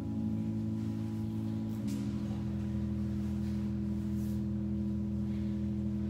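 Church organ holding slow, sustained chords, moving to a new chord about two seconds in.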